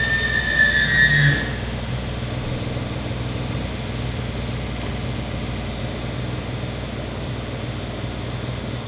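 Datsun 240Z engine idling steadily on a chassis dyno. A high whistle and a couple of louder peaks fade out in the first second and a half.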